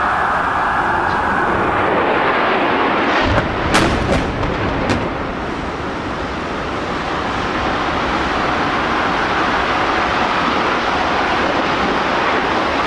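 A Boeing 767 jetliner's engines rush in loud and steady overhead. A few sharp cracks about four seconds in mark its crash and the fuel fireball exploding in the World Trade Center's South Tower. A heavy continuous rumble follows.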